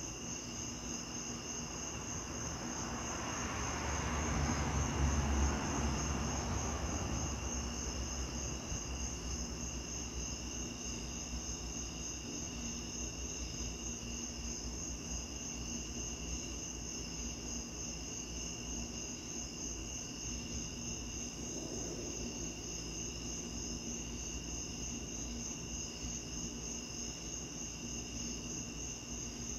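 Night-time crickets chirping in steady, even pulses. About three to seven seconds in, a low rumble swells and fades.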